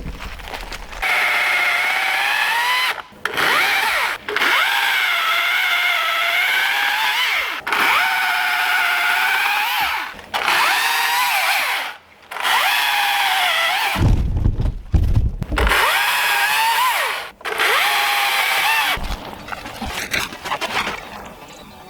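Battery-powered chainsaw cutting through storm-broken tree branches in a series of cuts: a high electric whine that sags in pitch as the chain bites the wood and recovers between cuts, stopping briefly several times. A few low thumps come about two-thirds of the way through.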